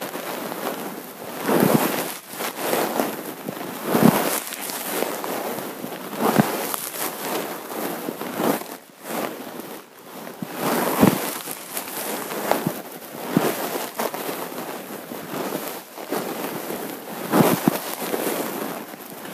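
Irregular rustling and crackling with scattered short knocks, the handling noise of people at work on paper and desks.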